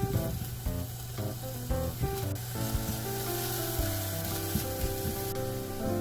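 Food sizzling in a hot frying pan, a steady hiss under light background music.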